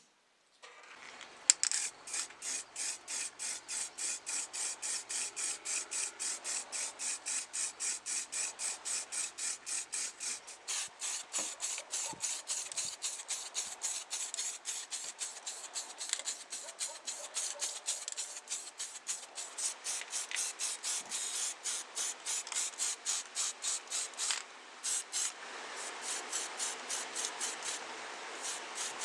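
Hand abrasion of a model car part: steady back-and-forth rubbing strokes, about three a second, as with sandpaper, a file or a brush worked by hand. The strokes pause briefly near the end, then resume.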